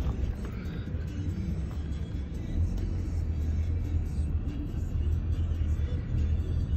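Steady low rumble of a road vehicle driving, engine and road noise heard from inside it.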